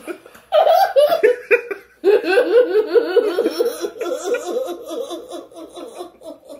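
A man and a woman laughing hard. Loud bursts start about half a second in, then a fast, steady run of 'ha-ha' pulses that slowly tails off.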